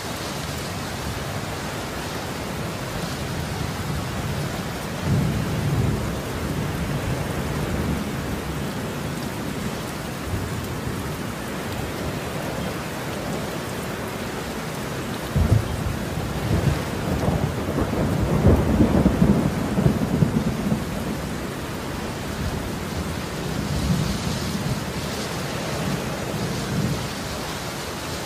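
Heavy rain pouring steadily, with thunder rumbling: a long, louder roll from about halfway through lasting several seconds, and shorter, weaker rumbles before and after it.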